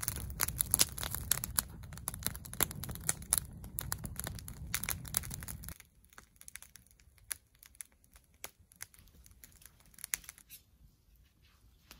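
Wood campfire crackling and popping up close, with a low rumble underneath. About six seconds in, the sound drops suddenly to a few faint, scattered pops.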